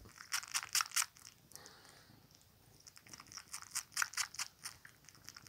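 Young tabby kitten suckling on a cotton t-shirt: quick, wet smacking and sucking clicks, one run in the first second and another from about three seconds in, with a quieter gap between.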